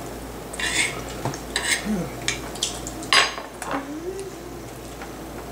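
Forks clinking and scraping against plates during a meal: about five short, sharp clinks over the first three seconds or so.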